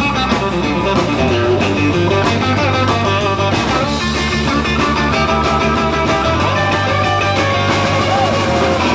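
Live rock and roll band playing an instrumental break, led by guitar over a steady bass and drum groove.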